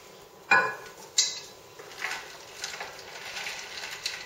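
Ice cubes added to a glass jar of warm sweet tea, clinking against the glass to cool it down. Two sharp clinks come about half a second and just over a second in, followed by lighter clicks.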